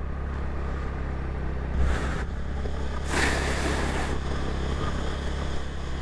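Motor scooter's small single-cylinder engine running steadily while riding, under a constant rush of wind and road noise. Two brief rushes of hiss come about two and three seconds in.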